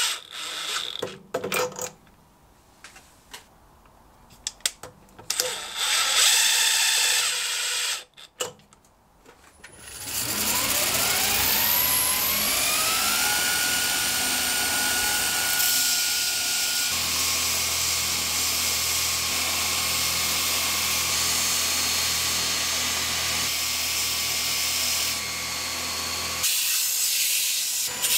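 A cordless DeWalt driver runs briefly at the start, followed by scattered clicks and knocks. About ten seconds in, a belt grinder's motor starts, its whine rising in pitch as it spins up, and then it runs steadily with the abrasive belt hissing.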